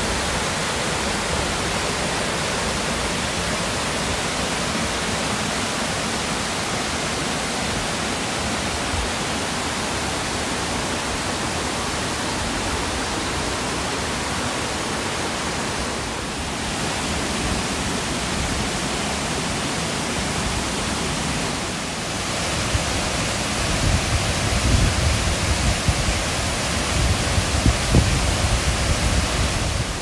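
Rushing water of a rocky mountain river tumbling over small cascades and rapids below a waterfall: a steady, full hiss. In the last several seconds an uneven low buffeting on the microphone breaks in over it.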